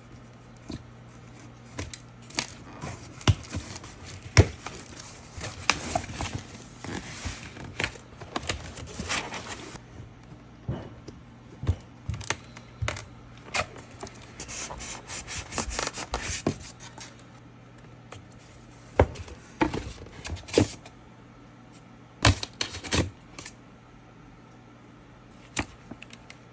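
Handling noise from unboxing a speaker: packaging rubbing and scraping, with many scattered taps and clicks as pieces are lifted and set down.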